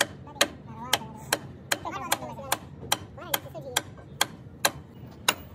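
Hand hammer striking the steel of a Cat motor grader's center-pin knuckle assembly: about a dozen sharp, evenly paced metal-on-metal blows, a little over two a second.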